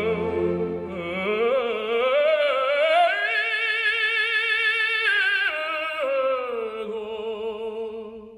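Background music: an operatic voice singing with strong vibrato. It climbs to a long held high note, then steps back down and fades away at the end.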